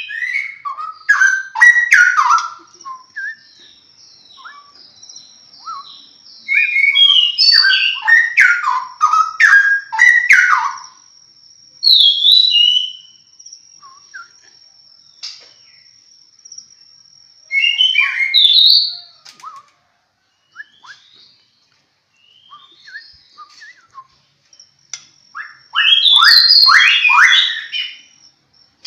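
Straw-headed bulbul (cucak rowo) singing in five loud bursts of fast, rich whistled phrases with quick rising and falling notes, separated by pauses of a few seconds. This kind of vigorous, continuous song is what keepers call gacor. A faint steady high-pitched tone sits behind the song for much of the time.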